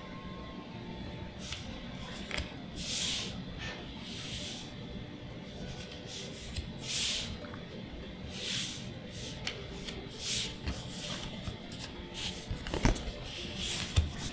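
Magic: The Gathering trading cards sliding against each other as they are revealed one at a time, a soft swish every second or two, with a couple of sharp clicks near the end.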